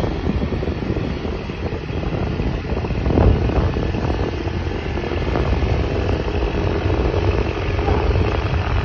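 Motorcycle running while being ridden, heard from the rider's seat as a steady low rumble, with one brief louder thump about three seconds in.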